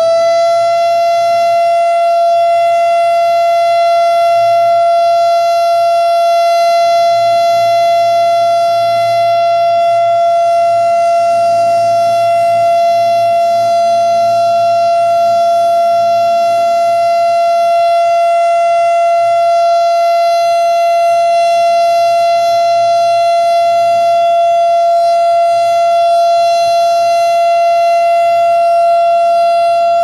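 STH-10 siren sounding the Alert signal: one loud, steady tone held at constant pitch. The pitch begins to drop right at the end as the signal winds down.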